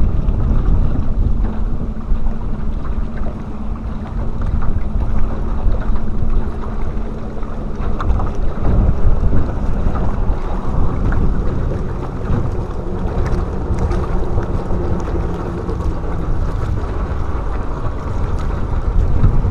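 Wind buffeting the microphone of a camera mounted on a small open boat, a loud, fluttering rumble, with a faint steady low hum underneath.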